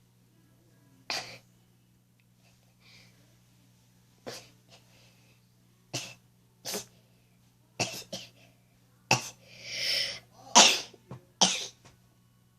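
A person sneezing, set off by a cotton swab tickling inside the nostril: a string of short sharp sniffs and nasal puffs, then a swelling in-breath and the loudest sneeze about ten and a half seconds in, with one more short burst just after.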